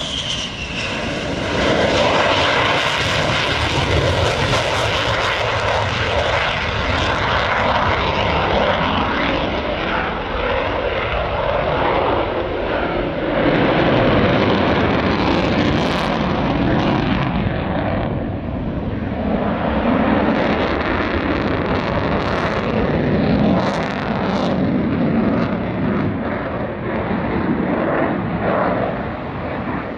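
Loud roar of an F-15QA fighter's twin jet engines in afterburner during a go-around and vertical climb. The roar shifts in tone throughout, with sharp crackles in the second half.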